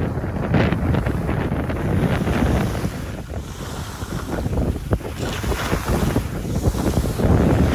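Wind buffeting the microphone during a downhill ski run, mixed with skis hissing and scraping over groomed snow in an uneven, fluctuating rush.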